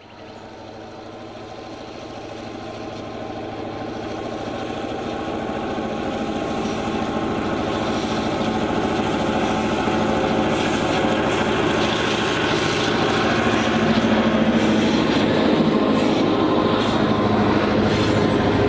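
HO scale model freight train hauled by EMD F3 and Alco FA model diesels running along the track. It grows louder for several seconds as it approaches, then holds steady with a hum and light clicking from the wheels on the track.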